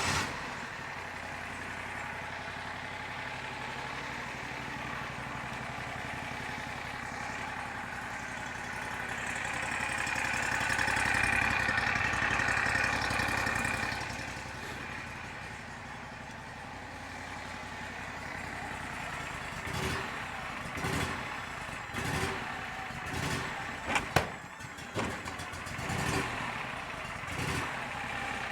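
An engine running steadily, louder for a few seconds around the middle, with a run of knocks and thuds in the last third and one sharp bang near the end.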